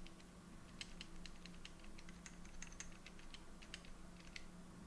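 Kailh Deep Sea silenced switches pressed over and over, giving only faint, irregular soft ticks: a silicone pad deadens the bottom-out, leaving just a light tap as each stem returns upward.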